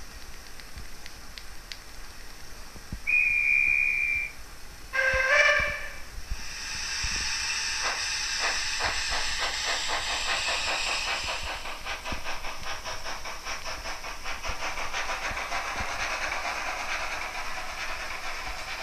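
Sound decoder of a Roco H0 model of the kkStB 109 steam locomotive: a short single-note whistle about three seconds in, then a fuller chord whistle, followed by a steam hiss and rhythmic exhaust chuffs that start slowly and quicken as the locomotive starts off.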